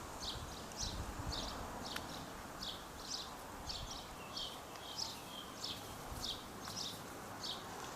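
A small bird calling with short, high chirps repeated evenly about twice a second, over a faint low steady hiss.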